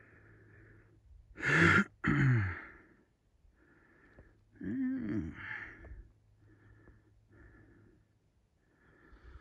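A man's breathing, with two louder voiced sounds, sighs or murmurs, about a second and a half in and again around five seconds in.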